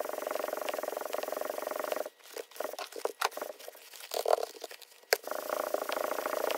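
Cylinder head being rubbed back and forth on 220-grit sandpaper over a sheet of glass, a steady gritty scraping, to flatten a slightly warped head. About two seconds in the scraping stops for a few seconds of scattered clicks and knocks as the head is shifted, then it starts again about five seconds in.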